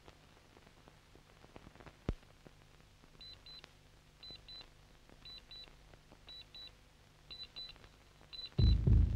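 Electronic beeping in pairs, two short high beeps about once a second, over faint film hiss and crackle with a single click. Near the end a much louder low pulsing sound begins.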